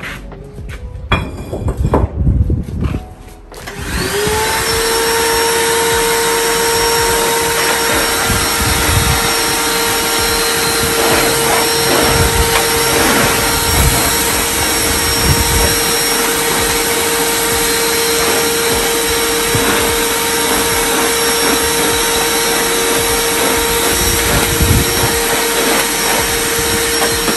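A few knocks, then about four seconds in a vacuum cleaner switches on. Its motor whine rises briefly to speed and then runs steadily.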